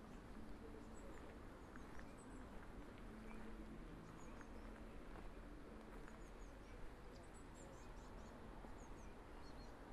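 Small birds chirping faintly: short, high, scattered calls over a quiet outdoor background with a faint low hum.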